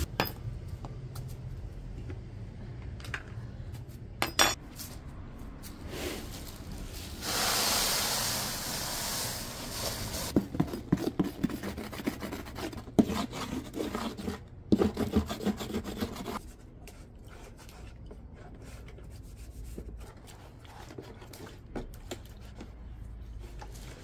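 Household cleaning and handling sounds: rubbing and scraping, a sharp knock, a hiss about two seconds long, then several seconds of rapid clattering and knocking that settles back to quieter rubbing.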